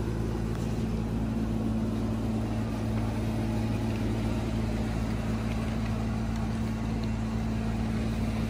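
A steady machine hum, with a few even low tones that do not change in pitch.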